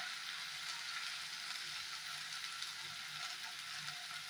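Sliced ivy gourd sizzling steadily in oil in a kadai as it sautés, the vegetables giving off their water into the pan.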